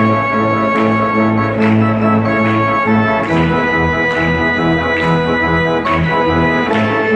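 Church organ playing a lively tune: full held chords over a moving pedal bass, with accents on a steady beat a little more often than once a second.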